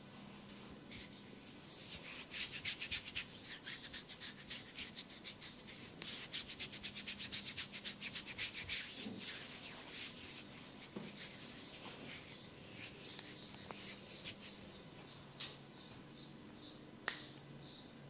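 Fast rhythmic rubbing and scratching strokes on a scalp and hair during a head massage, about five or six strokes a second, easing off after about twelve seconds. Near the end a short high chirp repeats about twice a second, and a single sharp click sounds.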